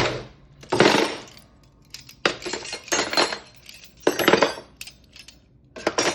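Metal silverware clinking and clattering as it is put away, in four short clusters of clinks with pauses between.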